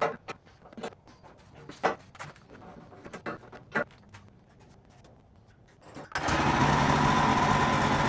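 A few scattered knocks and clanks, then about six seconds in the WoodMizer LX55 sawmill's engine comes on abruptly and runs steadily.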